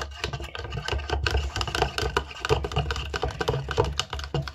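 A toothbrush stirring water and toothpaste in a plastic bowl: a quick, continuous run of clicks and scrapes as it knocks and rubs against the bowl.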